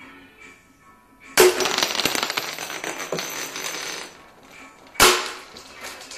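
Smith & Wesson 8-inch CO2 air revolver firing twice: a sharp report about a second and a half in, followed by nearly three seconds of noisy hiss and rattle, then a second short, sharp shot near the end with a brief ringing tail.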